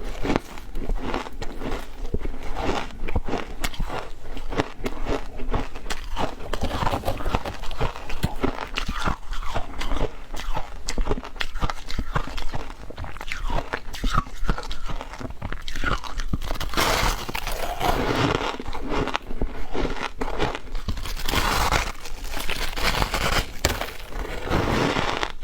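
Someone biting and chewing shaved ice: a dense run of crisp crunches, packed closer together at a couple of points near the end.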